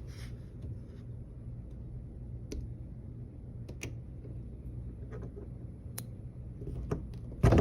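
A few faint clicks and taps over a low steady hum, then near the end a sudden loud thunk as the door swings open and the magnetic door catch snaps onto its wall-mounted plate.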